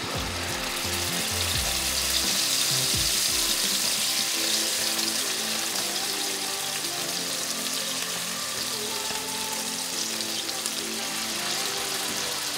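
Bluefish fillets sizzling in hot olive oil in a skillet as they are laid in one after another. The sizzle swells over the first couple of seconds, then holds steady.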